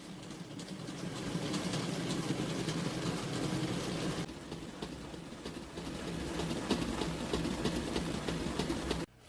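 Electric mixer running steadily, its motor humming under a rapid clatter, then cutting off suddenly near the end.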